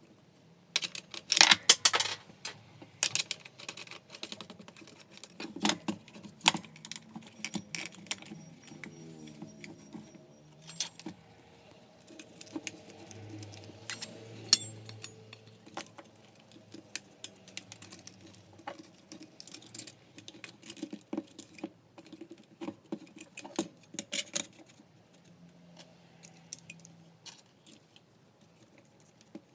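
Small metal and plastic parts, screws and hand tools clicking, tapping and clinking against each other and the bench in irregular handling sounds while a belt sander is worked on by hand.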